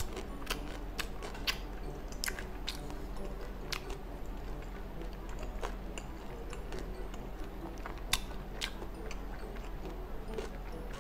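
Close-miked chewing and mouth sounds of someone eating fried rice with gopchang, heard as scattered sharp clicks at irregular intervals, a few of them louder, over a steady low hum. Now and then a wooden spoon scrapes or taps against a glass bowl.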